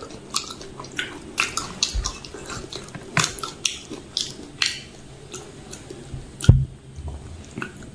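Close-miked wet chewing and mouth clicks of someone eating panipuri, with a thump about six and a half seconds in.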